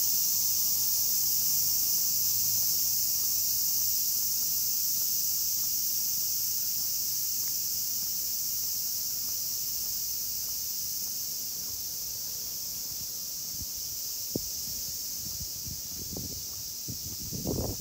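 Chorus of cicadas, a steady high-pitched drone. A few low bumps come near the end.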